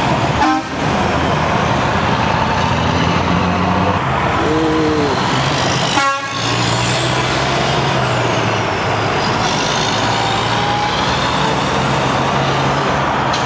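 Diesel semi-trucks hauling shipping containers and cars passing close by in steady, loud traffic, engines running under the tyre noise. A short two-tone toot sounds about four and a half seconds in, and two sharp knocks come near the start and about six seconds in.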